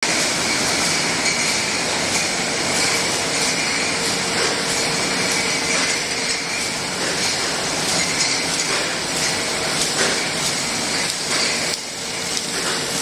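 A glass-jar conveyor line running: steady machine noise with a constant hum, and frequent short clinks of glass jars knocking together.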